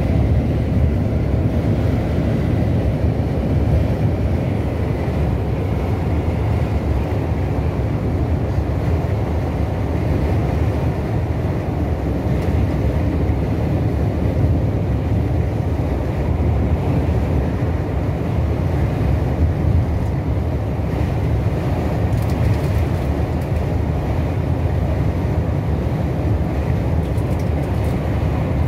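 Coach's engine and tyre rumble heard from inside the passenger cabin, cruising at motorway speed; a steady low noise throughout.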